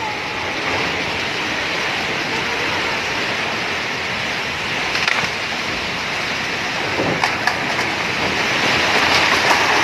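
Heavy rain pouring down in a steady hiss, growing a little louder near the end, with a few sharp knocks about five and seven seconds in.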